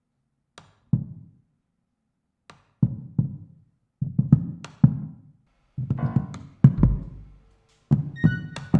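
Music: sparse percussion strikes, low thuds with sharp attacks, in short groups separated by silences and coming closer together as it goes. A few high held tones enter near the end.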